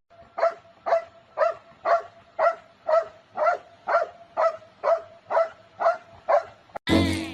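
A dog barking over and over in an even rhythm, about two short barks a second, with music coming in near the end.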